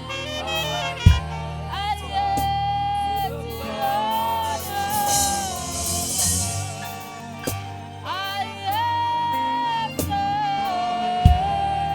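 Worship-band music with a saxophone playing slow, long held notes that slide between pitches, over a steady keyboard and bass backing. A low drum thump comes about a second in and again near the end.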